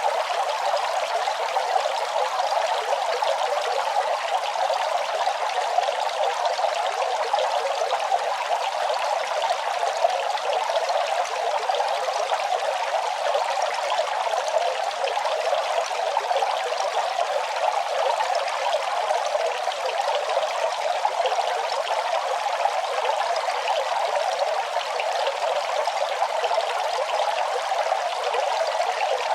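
Running water flowing in a steady, unchanging trickle, with no deep rumble.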